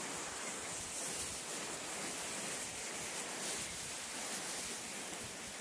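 Steady rustling hiss of tall grass as small puppies push through it, with wind on the microphone.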